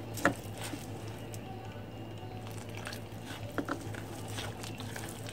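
Plastic spatula stirring a thick, wet wheat-and-rice-flour batter in a glass bowl: soft squelching with a few brief clicks of the spatula against the glass, over a steady low hum.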